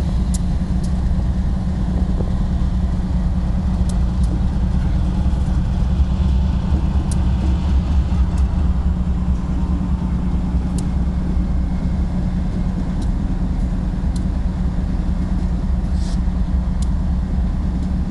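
CSX diesel locomotive's engine running steadily, a low rumble with a steady hum, with a few faint scattered clicks.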